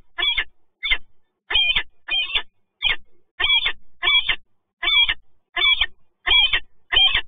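Female peregrine falcon calling over and over, short calls repeated steadily about three every two seconds.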